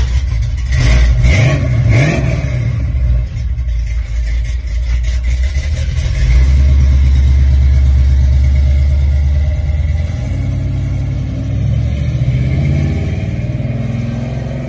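Chevrolet 350 small-block V8 with a lopey aftermarket cam, revved in quick blips near the start, then held a little higher for a few seconds and dropping back to a choppy, pulsing idle.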